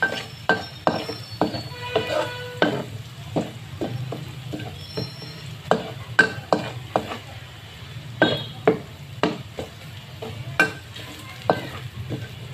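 A spatula scraping and knocking against a wok while stirring finely chopped food frying in a little oil, with a light sizzle underneath. The knocks come irregularly, about two a second.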